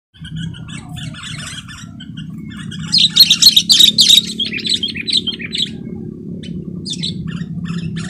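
Sooty-headed bulbuls calling in short, repeated chattering notes, loudest in a dense burst about three to four seconds in, over a steady low hum.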